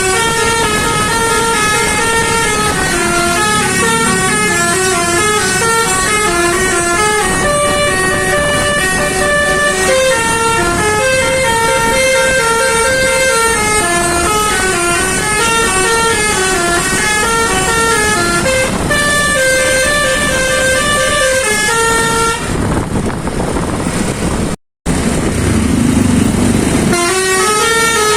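A bus's basuri telolet horn playing a melody of quick stepped notes that move up and down. About 22 seconds in it stops for a few seconds of rumbling noise with a brief dropout, then starts playing again near the end.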